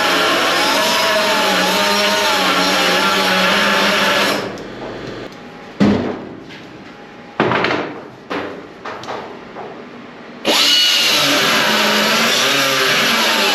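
Angle grinder cutting through steel mounts, its pitch wavering under load. It winds down about four seconds in, a few metal clanks follow, and it spins back up near the end.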